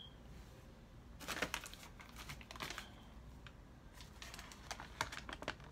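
Paper food packaging crinkling and rustling in several short bursts as it is handled.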